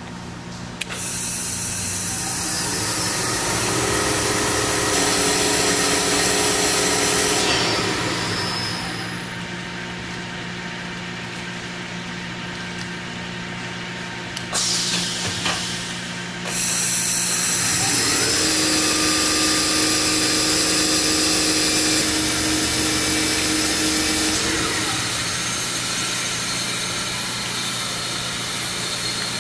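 Fadal 4020HT vertical machining center's spindle spinning up with a rising whine, running steadily at speed, then winding down, twice, over the machine's steady hum. A short hiss comes about halfway.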